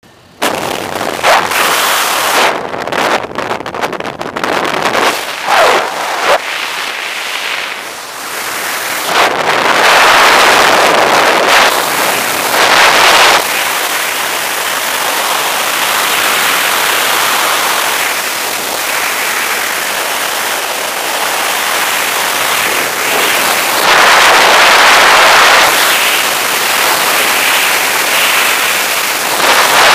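Freefall wind rushing over and buffeting a helmet camera's microphone, uneven and gusty in the first few seconds after leaving the aircraft door, then a steadier loud rush.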